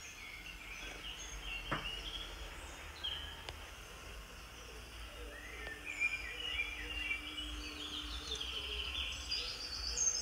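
Birds chirping and calling, many short calls overlapping, over a steady low rumble, with a single sharp click about two seconds in.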